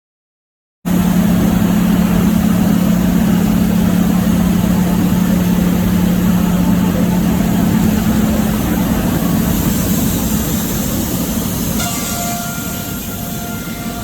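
Loud, steady machine noise with a strong low hum, cutting in abruptly about a second in. A few faint steady tones join near the end.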